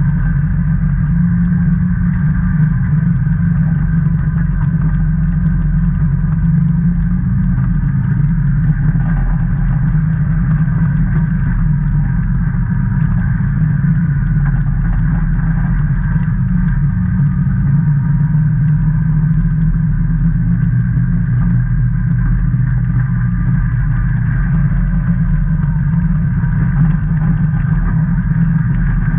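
Can-Am Maverick Trail 800 side-by-side's Rotax 800 cc V-twin engine running at a steady trail-cruising pace, heard from on board: a low, even drone with a thin steady whine above it.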